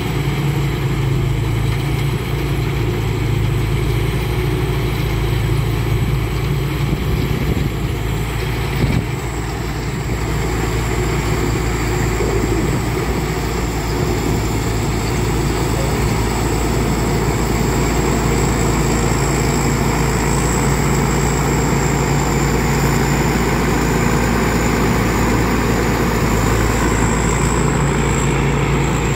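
Rice combine harvester running steadily as it cuts and threshes standing rice, its diesel engine hum overlaid with a steady high whine. There is a brief dip and a click about nine seconds in.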